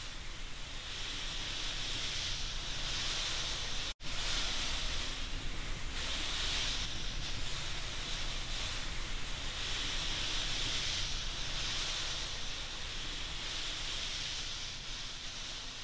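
Steady hissing rush of fine grains pouring and sliding, swelling and ebbing in waves, cut off for an instant about four seconds in.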